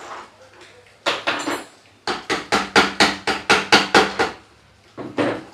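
Sharp knocks on the plastic housing of a mixer grinder: one knock, then about a second later an even run of about a dozen quick knocks, roughly four or five a second. The housing is being rapped to shake a small loose part out of it.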